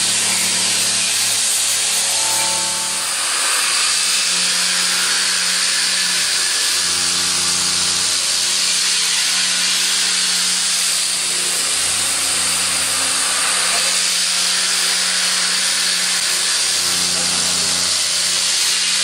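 Background music with sustained chords changing every few seconds, over a steady hiss.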